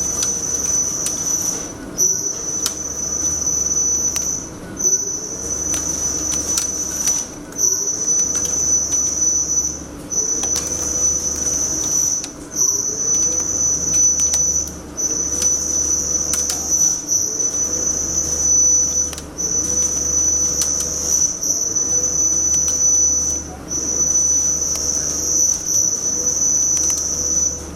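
Hurco TM12i CNC lathe turning P20 steel in repeated adaptive-turning passes. Each cutting pass gives a high, steady whine lasting about two seconds, broken by a short gap between passes about a dozen times. A short rising tone starts each pass.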